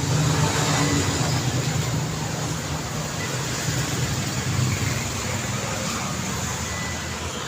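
Steady highway traffic: engine hum and tyre noise from passing vehicles, easing off slightly after about two seconds.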